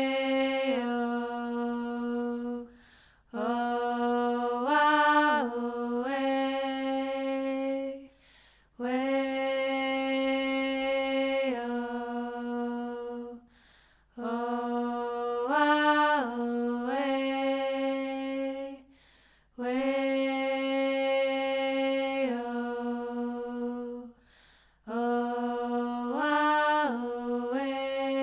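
Slow chant-like vocal music: one voice holds long low notes in phrases of about five seconds, with short breaks between them, stepping briefly up and back down partway through some phrases.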